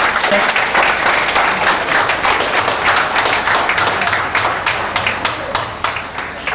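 Audience applauding, a dense patter of many hands clapping that thins out toward the end into scattered separate claps.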